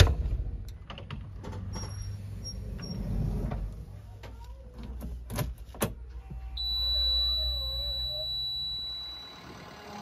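A JCB 3DX backhoe loader's cab door shutting with a sharp bang, followed by a few knocks and clicks. About six and a half seconds in, the ignition key is turned: a steady high tone comes on and the starter cranks the diesel engine for about two seconds.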